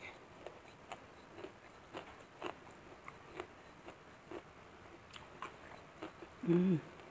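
A person chewing food by mouth close to the microphone, with soft, irregular mouth clicks and smacks about once or twice a second. Near the end comes a short, louder vocal sound.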